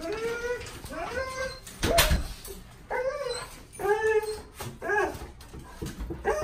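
Dogs whining and howling in excited greeting: a string of short cries, each rising and falling in pitch, with a single knock about two seconds in.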